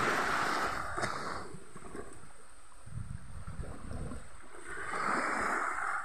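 Small sea waves lapping and washing up onto a sandy beach, swelling into a hissing wash at the start and again near the end, with a low rumble in between.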